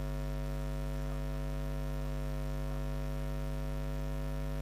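Steady low electrical mains hum with its evenly spaced overtones, unchanging throughout.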